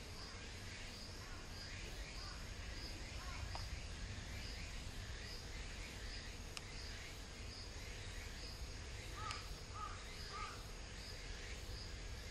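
Outdoor ambience: an insect chirping in a steady pulse, about three chirps every two seconds, over a low steady rumble. Three short chirps from another creature sound about nine to ten seconds in.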